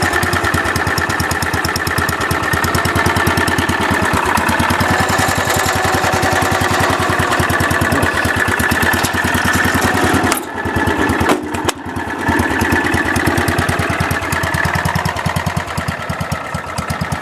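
A 10 hp cast-iron single-cylinder Kohler engine on a Wheel Horse C101 garden tractor running steadily through a large muffler, with quick, even firing pulses. The sound dips briefly twice, about ten and twelve seconds in.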